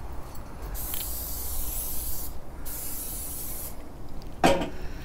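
Two bursts of canola oil cooking spray hissing from the can, each about a second long, coating the inside of a kamado grill. A dog barks once near the end.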